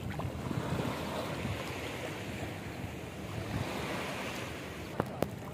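Small waves of a calm sea washing in the shallows, a steady wash of water noise, with some wind on the microphone. Two brief clicks sound about five seconds in.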